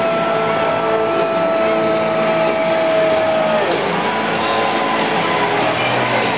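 Dense football-stadium crowd noise, mixed with loud music over the stadium PA. A long held note slides down and ends a little over halfway through.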